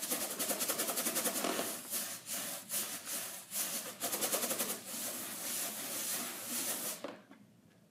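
Inflated rubber balloon rubbed rapidly back and forth against hair, a continuous dense rubbing that stops near the end. The rubbing builds a static charge on the balloon.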